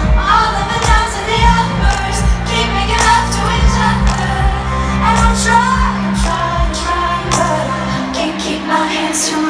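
Live pop music played through a stadium's sound system: a woman singing over held bass notes and a steady drum beat.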